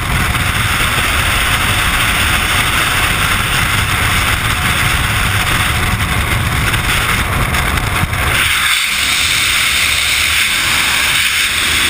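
Freefall wind blasting over a helmet-mounted action camera's microphone: a loud, steady rush with a deep buffeting rumble. About eight seconds in the rumble thins out and a brighter hiss remains.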